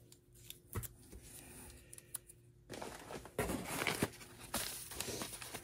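Paper mailer and bubble wrap crinkling and rustling as a package is pulled from a cardboard box. It starts a little under three seconds in, after a quiet stretch with a single click.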